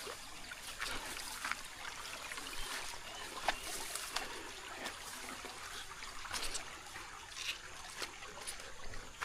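Water trickling and splashing steadily, with scattered short chirps and clicks over it.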